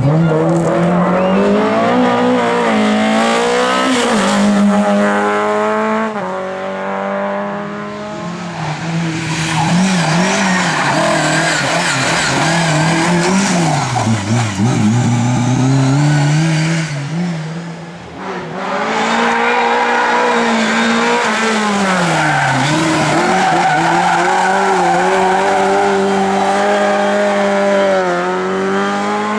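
Lada race car engines at high revs, pitch rising and falling with throttle and gear changes as the cars take corners, with tyres squealing and skidding. The squeal is strongest through the middle, and there is a brief drop in level a little past halfway.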